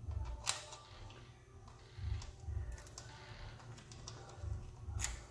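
Small metal clicks and light knocks from handling manual-transmission parts while working shift detent springs and balls out of their bores. Three sharp clicks stand out: one about half a second in, one near the middle and one near the end.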